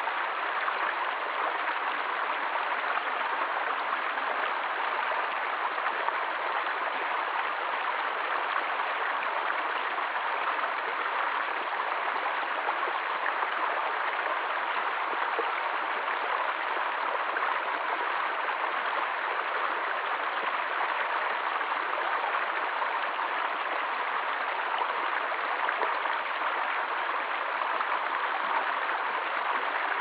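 Shallow stream running over rocks, a steady burble and rush of water with no change throughout.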